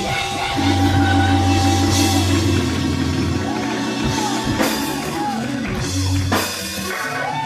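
Live gospel church band playing loudly, with a drum kit and long held low chords and notes.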